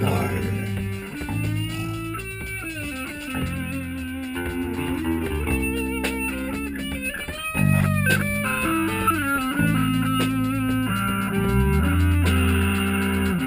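Music from a band rehearsal: electric guitar playing with bass guitar underneath, the notes changing continuously, with some bent notes about halfway through.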